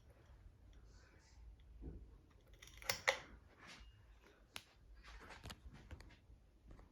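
Hampton Bay ceiling fan's metal pull chain rattling and its switch clicking in a few irregular clicks, the loudest cluster about three seconds in, over a low steady hum.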